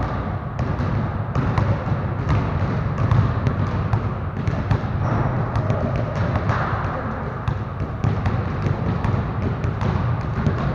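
Several basketballs dribbled at once on a gym floor, with many irregular, overlapping bounces in a large gymnasium.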